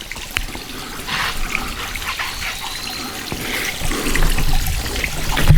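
Water trickling, with small scattered clicks throughout and a low thump near the end.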